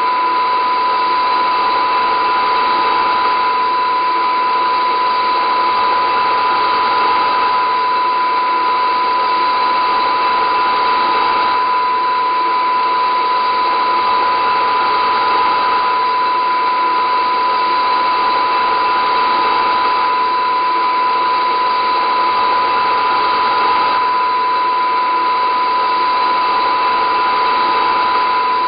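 Loud steady drone: one strong high tone held over a dense whirring hiss.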